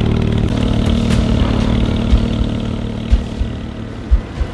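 Porsche 718 Cayman GT4 RS's 4.0-litre flat-six idling steadily through a Fi valvetronic exhaust with catless downpipes. It fades near the end, with a few short low thumps.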